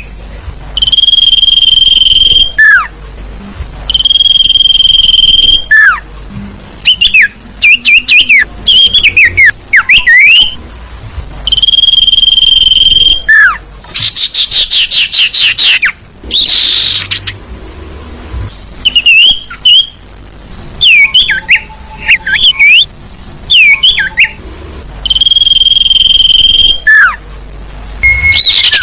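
Lure recording of sirtu bird calls, loud and clipped: long steady whistled notes about a second and a half each, repeated several times, alternating with fast trills and short rising and falling call notes.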